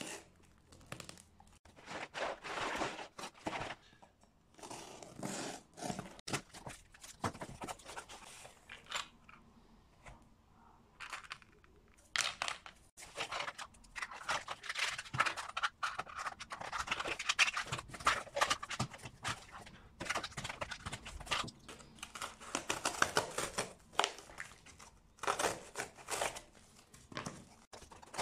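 A folding knife slicing packing tape and cardboard flaps being pulled open, then hard plastic pellet tins knocking and clicking against each other and the cardboard as they are handled and lifted out of the box.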